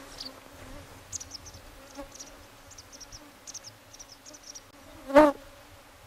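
A flying insect buzzing with a steady low hum, swelling into a loud, brief buzz as it passes close about five seconds in. Faint, high, short chirps are scattered through the middle.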